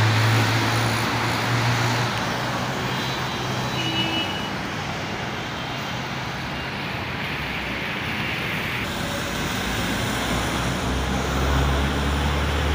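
Road traffic on a rain-soaked road: tyres hissing on wet asphalt, with the low hum of an engine in the first couple of seconds and a deeper engine rumble building near the end.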